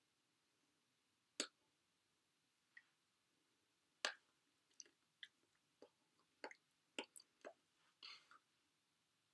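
Near silence broken by about a dozen short, sharp clicks and smacks, irregularly spaced: the small sounds of a person signing without speaking, hands meeting and lips moving.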